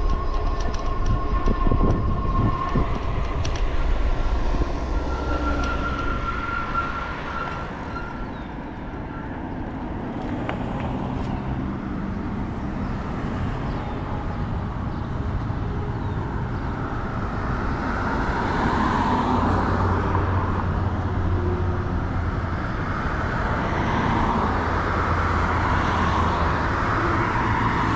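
Wind rumbling on the microphone of a moving e-bike, with a thin steady whine for the first few seconds. As the bike slows and stops, road traffic takes over, and a car passes near the end.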